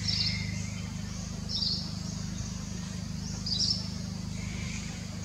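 A bird calling: a short high chirp repeated three times, about every two seconds, over a steady low hum.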